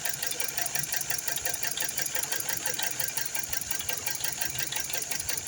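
2012 Toyota Corolla engine idling with a fast, even ticking. The engine is known to have an abnormal sound and is being diagnosed for a misfire put down to a leaking cylinder head gasket.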